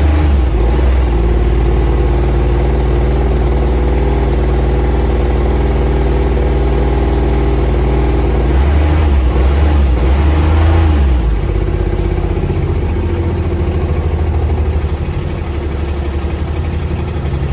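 Small diesel engine of an Intimidator UTV running cold at a raised speed, too cold to settle to idle. About eleven seconds in its note changes and it drops to a slower, pulsing run.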